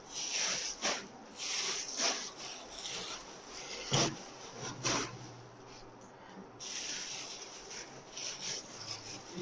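Packing noise: plastic-wrapped garments rustling and rubbing against a cardboard shipping box as they are pressed into it, in irregular swishes with a couple of sharp knocks about four and five seconds in.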